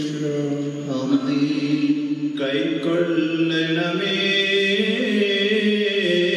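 Male clergy chanting a liturgical prayer in long held notes, the pitch stepping to a new note every second or so.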